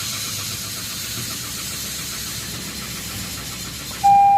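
Toyota car engine being cranked by its starter without catching: a no-start. A loud, steady electronic beep begins near the end.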